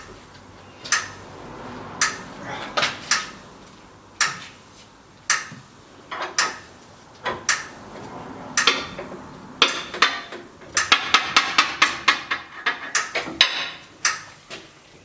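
Metal tools clinking and knocking against a motorcycle wheel rim while a tyre is worked onto it, in irregular sharp clicks with a quick run of clicks about two-thirds of the way through.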